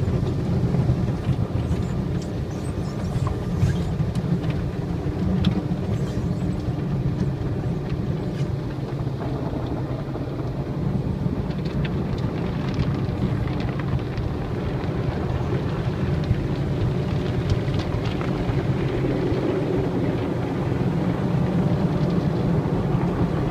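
Automatic car wash heard from inside the car's cabin: a steady low rumble with water and foam splashing over the windshield, and cloth brushes scrubbing across the glass near the end.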